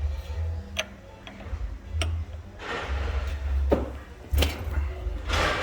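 Metal clicks, knocks and scraping of hand tools working on a sterilizer safety valve clamped in a vise as it is taken apart. There are several sharp clicks and two longer scrapes, over a low rumble.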